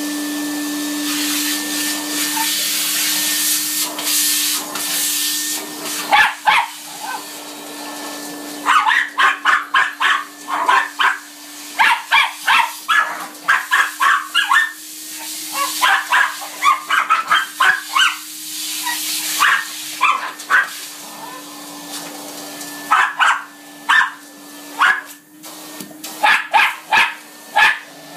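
Two Cairn terriers bark in rapid volleys of short, sharp barks at a running Numatic Hetty cylinder vacuum cleaner, whose steady motor hum carries on underneath. The vacuum runs alone for the first few seconds, and the barking starts about six seconds in.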